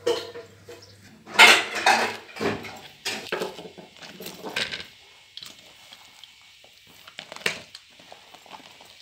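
Hands crumbling and mashing chunks of baked bread in a metal bowl: irregular rustling and crushing with knocks and clinks against the bowl. Loudest in the first half, with one sharp knock about three-quarters of the way through.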